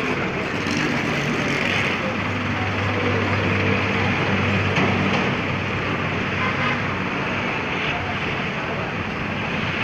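A motor vehicle's engine running steadily as a low drone, over constant traffic noise.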